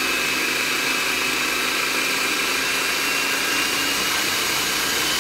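Electric food processor running steadily with a motor whine, puréeing softened cauliflower until smooth. The motor is switched off right at the end and winds down.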